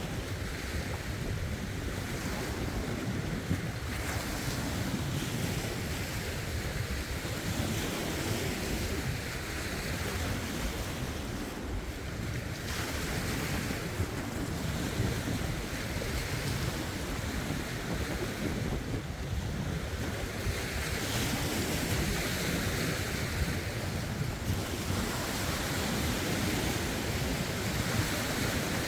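Lake waves lapping and washing over shoreline rocks, swelling and ebbing every few seconds, with wind buffeting the phone's microphone as a steady low rumble.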